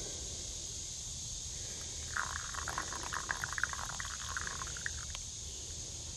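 Water pouring from a black enamel pot onto coffee grounds in a cloth bandana filter, a trickling splash that starts about two seconds in and lasts nearly three seconds.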